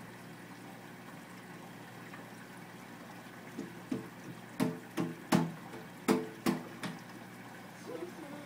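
Steady hum of aquarium equipment and moving water. In the middle comes a run of about eight sharp knocks, the loudest sounds here.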